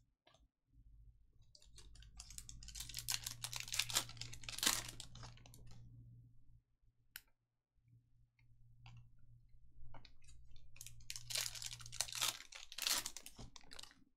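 Trading cards and their pack wrappers being handled by hand: dense crinkling and clicking over a low rumble, in two runs of about five seconds each with a short pause between.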